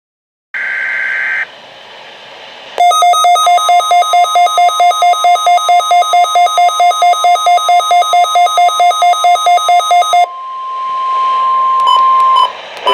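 Weather radio receivers sounding the NOAA Weather Radio Required Weekly Test: a short screech of digital SAME data tones, then a receiver's alert beeping about five times a second over the steady 1050 Hz warning alarm tone. The beeping stops about ten seconds in, and the alarm tone carries on alone until it cuts off near the end.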